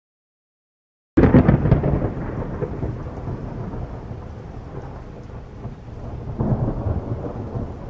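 Silence, then about a second in a sudden loud crack of thunder that rolls on as a long low rumble, fading and then swelling again near the end.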